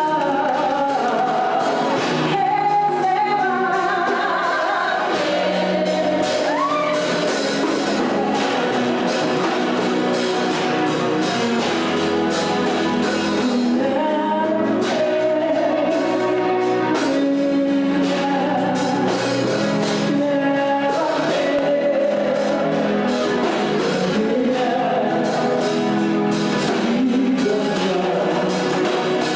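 Music with singing: sung lines over a full, steady accompaniment.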